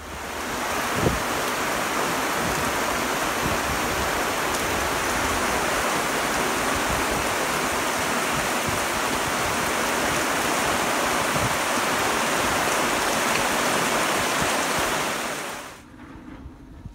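Heavy rain pouring down in a steady, loud downpour, with one brief thud about a second in. The rain cuts off suddenly near the end.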